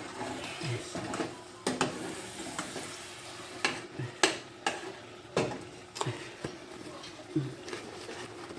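Spoon stirring mince in a cooking pot, knocking and scraping against the pan at irregular intervals over a hiss of cooking.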